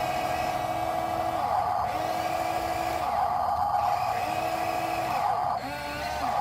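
Radio-controlled trucks' electric drive motors and gearboxes whining steadily, with a lower tone swelling in and out about four times as the throttle is worked.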